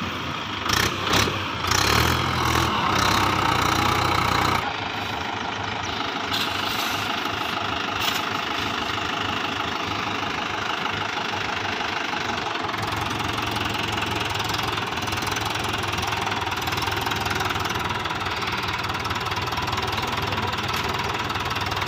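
Swaraj 843 XM tractor's three-cylinder diesel engine running with a knocking idle. It is louder for the first four seconds or so, with a few sharp knocks, then drops suddenly to a steady, quieter idle.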